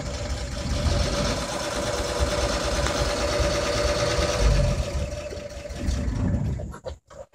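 1959 Chevrolet truck's engine idling steadily, with a steady whine running through it. The sound drops out briefly near the end.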